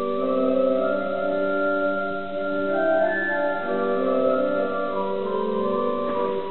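Children's choir singing slow, sustained notes in several parts, the chords changing every second or so.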